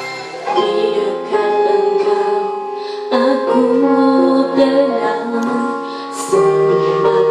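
Female singing with keyboard accompaniment, long held notes changing every second or two.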